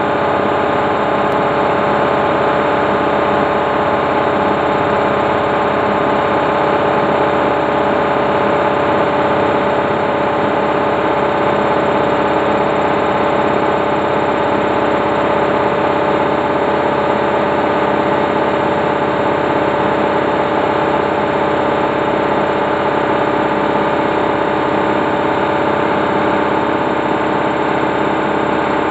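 Bush Big Load Synth 40 front-loading washing machine in its final fast spin, the drum and motor running steadily at high speed with a constant whine of several steady tones over a hum.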